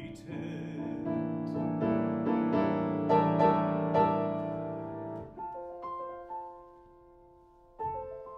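Grand piano playing a solo interlude: a dense flurry of notes and chords that grows louder, breaks off sharply about five seconds in, then a few quiet, sparse single notes and a soft chord near the end.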